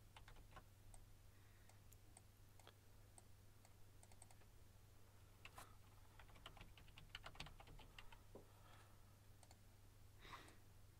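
Faint computer keyboard typing and mouse clicks over a low steady hum, with a quick run of keystrokes about six to seven and a half seconds in.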